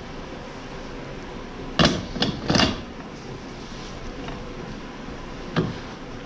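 Knocks and clatters from hand work on a car's master cylinder and brake booster: three sharp knocks in quick succession about two seconds in, then one more near the end, over steady shop background noise.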